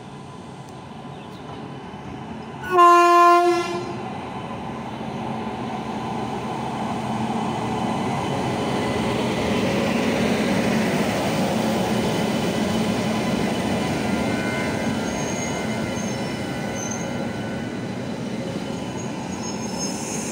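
An electric locomotive gives one short horn blast about three seconds in as it arrives. Then the locomotive and its passenger coaches run past with a steady rolling rumble of wheels on rail, which swells as the train draws level and eases off. Faint high-pitched wheel squeals come in near the end.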